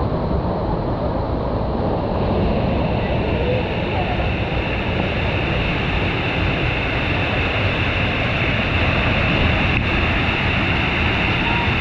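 Steady rushing of water, loud and even, with a higher hiss joining about two seconds in.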